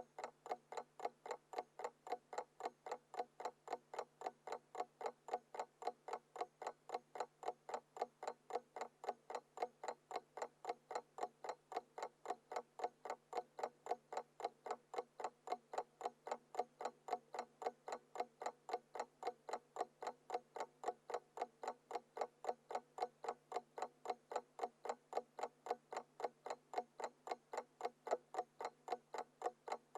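Classic analog alarm clock ticking steadily, at about four even ticks a second, with no alarm ringing. A faint steady low hum lies beneath the ticks.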